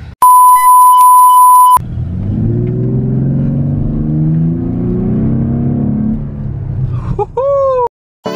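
A loud steady beep tone, like a censor bleep, lasting about a second and a half, then a pickup truck's engine starts and runs, its pitch climbing as it is revved. Near the end a short tone rises and levels off.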